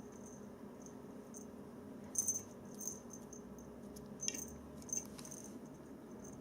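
Short, high-pitched clicks and rattles from a toy mouse batted about by a Bengal kitten, in several quick bursts, the loudest about two seconds in.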